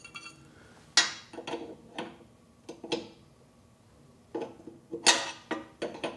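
An 11/16-inch wrench clinking against the metal hose fitting as it is set on and repositioned to tighten the fitting onto the nitrogen counterbalance's Schrader valve: a scattered run of sharp metallic clicks, the loudest about a second in.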